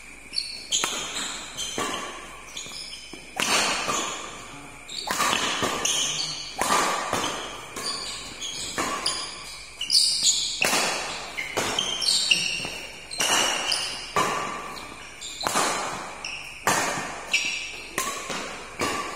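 Badminton doubles rally: rackets striking the shuttlecock back and forth in a steady exchange, a sharp hit about once a second, each echoing in a large hall.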